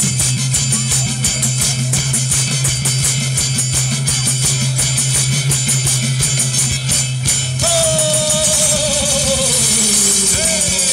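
Loud instrumental music with a steady drum beat and a held bass note. About three-quarters of the way through, a melody line comes in and slides downward: the introduction to a song.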